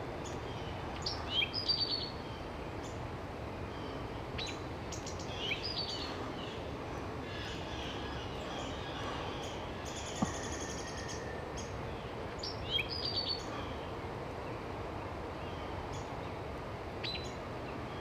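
Male eastern towhee singing its drink-your-tea song three times: each phrase is a couple of sharp notes followed by a fast trill, with a few fainter single notes between, over a steady background hiss.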